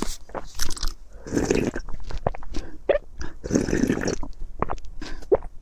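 Close-miked eating: a person chewing and biting food with wet mouth clicks, in two longer bouts of chewing separated by short pauses.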